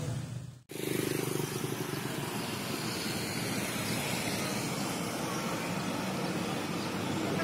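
Steady road traffic noise, an even rush with no single distinct event, cutting in after a brief silent gap less than a second in.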